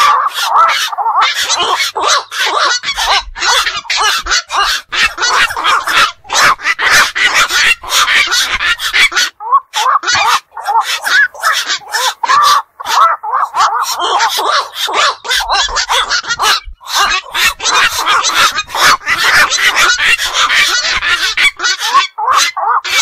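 Black-crowned night herons calling: a dense, continuous run of short, harsh croaking calls, several a second, broken by only brief gaps. The same stretch seems to repeat about every twelve seconds, as a looped recording.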